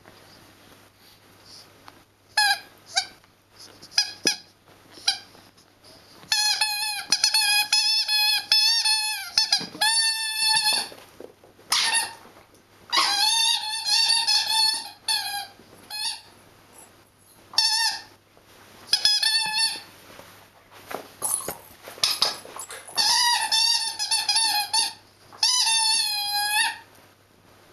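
Squeaky toy ball squeaking again and again as a puppy chews it: a few short single squeaks at first, then long runs of rapid squeaks lasting a second or more each, with short pauses between.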